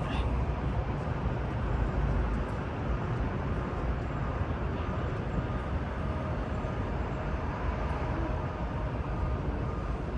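Steady outdoor city background noise: a low traffic-like rumble with a faint steady hum through it, and no music.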